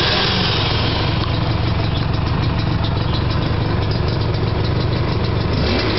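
Gilera CX's 125cc single-cylinder two-stroke engine idling steadily.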